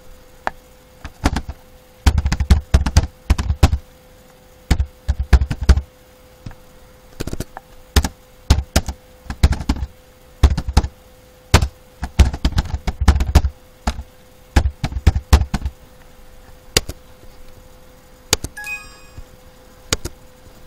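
Computer keyboard typing in quick bursts of keystrokes separated by short pauses, over a faint steady hum.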